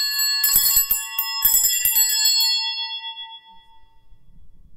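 Altar bells (sanctus bells) rung at the consecration of the wine. They are shaken about once a second, then left to ring out, fading away by about four seconds in.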